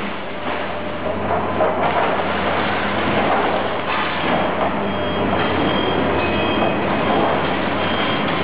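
Machinery dismantling scrap cars: a continuous loud rumble and clatter of metal, with brief high metallic squeals in the second half.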